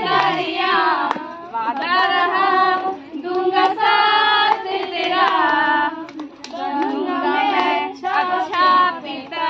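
Women singing a song in phrases with short breaks, with a group clapping their hands along.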